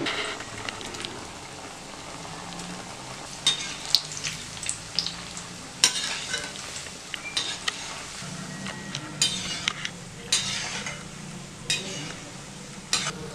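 Diamond-cut maida biscuit dough pieces deep-frying in hot oil in an aluminium kadai, a steady sizzle. A slotted ladle stirring them scrapes and knocks against the pan several times.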